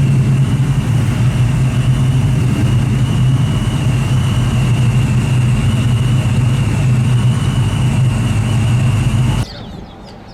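Car engine running steadily, a loud low hum with a thin high whine above it, stopping abruptly about nine and a half seconds in and giving way to a much quieter background.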